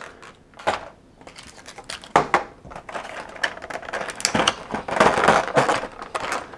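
Clear plastic blister tray being lifted out of a cardboard box and handled, crackling and clicking in irregular bursts, busiest in the second half.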